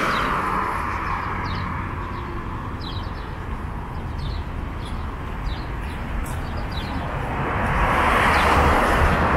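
Street traffic: a passing vehicle's sound fades over the first second or two, a lower steady rumble follows, and another vehicle draws close and grows louder from about eight seconds in.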